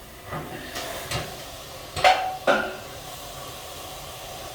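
Sauna stove being given steam: sharp metal clanks and knocks, the loudest two about two seconds in with a short ring. Then a steady hiss as steam goes into the stove's steel steam superheater.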